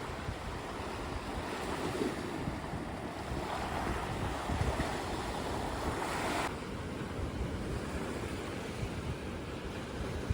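Sea waves washing onto the shore, with wind buffeting the microphone. The surf sound swells and then drops off abruptly about six and a half seconds in, leaving a lower rumble of wind.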